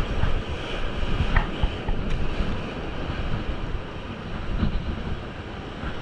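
Surf breaking and washing over shore rocks, with wind buffeting the microphone in a low rumble.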